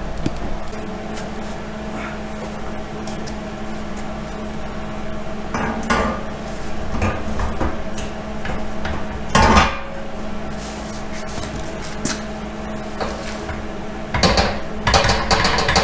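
A welded steel axle truss clanking and scraping against the steel axle housing as it is set back in place for a fit check, with a louder clank about nine and a half seconds in and more clatter near the end. A steady hum runs underneath.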